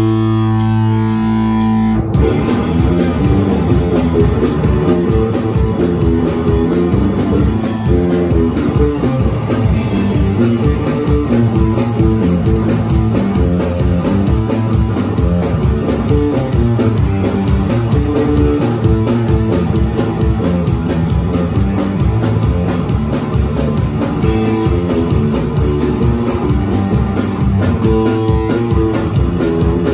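A rock band playing live, loud: a held guitar chord rings for about two seconds, then the drum kit and guitar come in together and play on.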